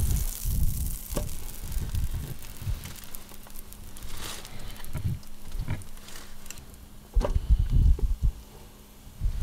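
Melted butter sizzling in a frying pan as slices of soaked bread are laid in and arranged by hand. Soft knocks and low thumps from handling the bread and pan come throughout, loudest about seven to eight seconds in.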